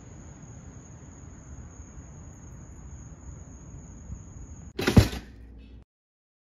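Steady night-time background hiss with a thin high steady tone, broken about five seconds in by a single loud, sudden thump or bang that dies away within a second, after which the sound cuts to dead silence.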